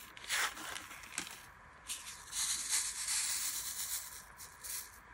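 Faint rustling and a couple of light clicks from hands handling small diamond-painting tools and drills; the clicks fall within the first second or so and the rustling comes a little later.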